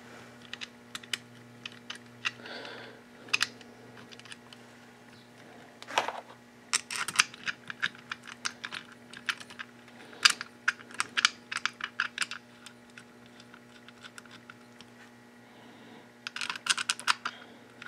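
Light clicks and taps from hand tools and clutch parts being handled, some single and some in quick runs, over a faint steady hum.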